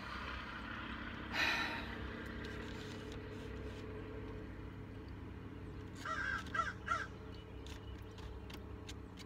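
A crow cawing outside: one harsh caw about a second in, then three quick caws about six seconds in.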